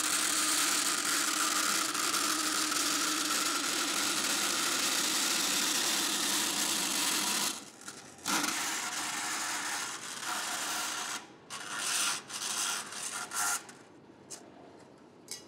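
DoAll vertical bandsaw blade cutting a circle out of sheet metal: a steady, loud rasping hiss for about the first seven seconds. It then breaks into short bursts of cutting with pauses as the sheet is turned around the curve, fainter toward the end.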